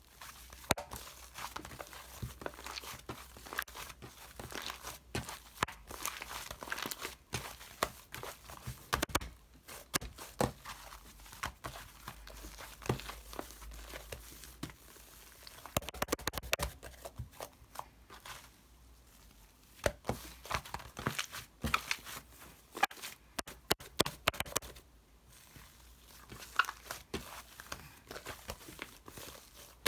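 Crinkling, rustling handling sounds full of irregular small clicks and crackles, like something being crumpled or torn, quieter for a couple of short stretches.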